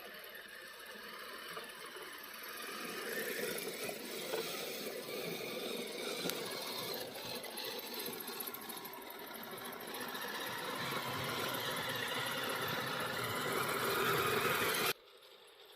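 Kyosho Blizzard RC snowcat's electric motor whirring and its metal tracks rattling as it drives, growing louder, then cutting off suddenly near the end.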